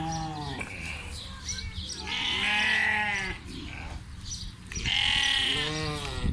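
Goats bleating: a short call at the start, then two long, wavering bleats, one near the middle and one near the end.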